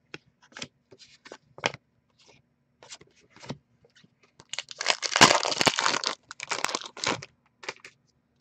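Trading cards and their packaging being handled on a desk: scattered light clicks and taps, then a louder crinkly rustle lasting about a second and a half, about five seconds in.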